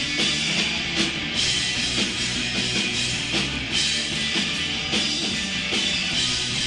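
Rock band playing live, with guitar and drum kit and a steady wash of cymbals.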